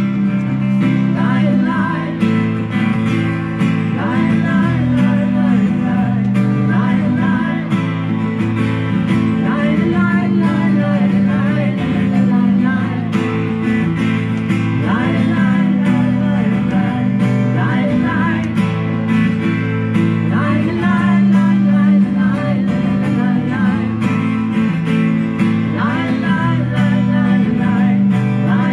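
Live acoustic music: acoustic guitar strumming and picking chords, with a singer's voice carrying a melody over it.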